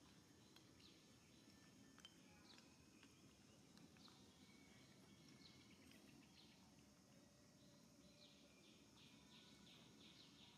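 Near silence: faint outdoor ambience with scattered faint high chirps, which come in a quicker run near the end.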